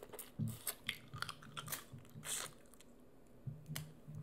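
Close-miked eating sounds from a crawfish boil: chewing and sucking on boiled crawfish and fingers, with scattered sharp clicks and crackles from the shells.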